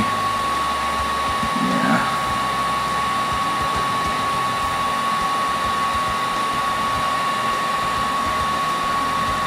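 Paint-stripping heat gun running steadily, a constant rush of air with a steady whine over it, blowing hot air onto a laptop motherboard to reflow the solder under a chip.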